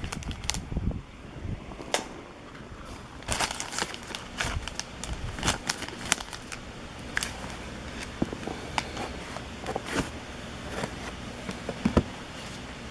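Trading cards being handled and flipped through one after another: irregular light clicks and rustling.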